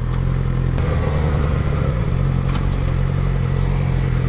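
Suzuki GSX-R600 inline-four motorcycle engine running with a steady, unchanging note, heard from the rider's helmet-mounted microphone along with road noise.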